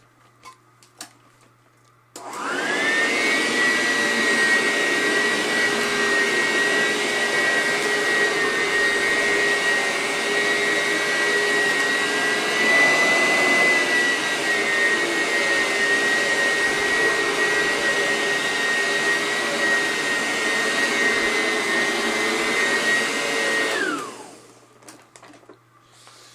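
Eureka Sanitaire upright vacuum cleaner switched on about two seconds in, its motor whining up to speed, then running steadily with a high whine. Near the end it is switched off and the motor winds down.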